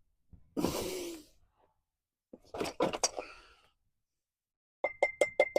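A short sigh or breath, then a few metal clicks, and near the end light hammer taps on metal begin, about five a second with a ringing note, seating a part that was started by hand.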